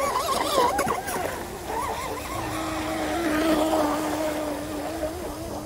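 Fast electric RC boat running on the water, its brushless motor whining. The pitch wavers in the first second or so, then holds steady from about two seconds in.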